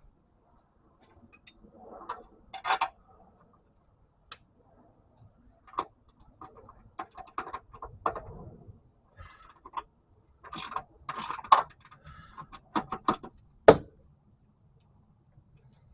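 Hand tools working on transmission bolts: irregular metallic clicks, ratcheting and clinks, with a louder cluster a little past the middle and one sharp knock near the end.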